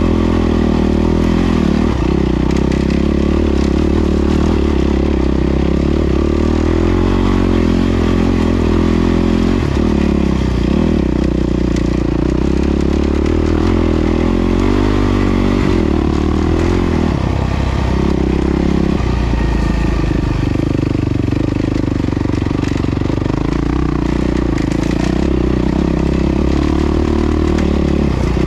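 Yamaha WR450F dirt bike's single-cylinder four-stroke engine running at varying revs as it is ridden.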